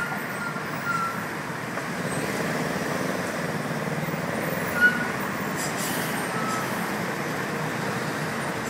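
Dense rush-hour road traffic: a steady wash of engine and tyre noise from many vehicles, with a few short high tones, the loudest a sharp one about halfway through.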